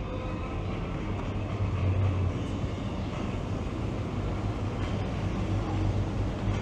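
Engine and exhaust of a classic car or hot rod running at low speed, a steady low rumble that swells briefly about two seconds in.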